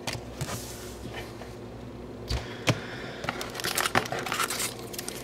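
Trading cards and foil booster-pack wrappers being handled: scattered light rustling and a few sharp taps, busier in the last couple of seconds.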